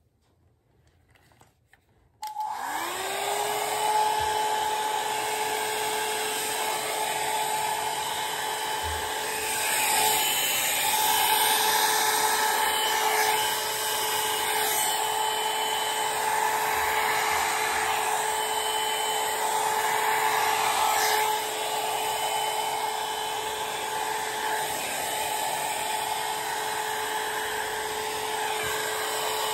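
Electric hair dryer switched on about two seconds in, its motor spinning up to a steady whine over a rush of blown air. It then runs without pause, the rush swelling and easing a little as it is worked through the hair.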